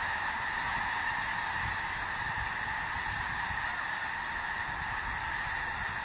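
A huge flock of snow geese calling all at once: a dense, steady din of overlapping honks.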